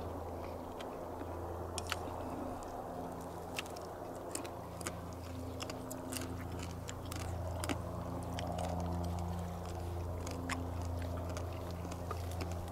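A person chewing and eating noodles close to the microphone, with scattered small mouth clicks, over a steady low hum.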